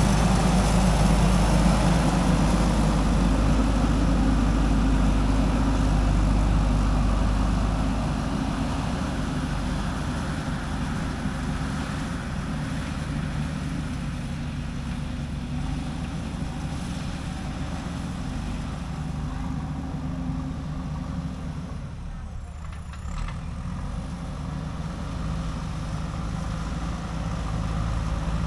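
JCB 3DX backhoe loader's diesel engine running as the machine works, a steady low drone that is louder for the first several seconds and then eases to a lower, quieter note.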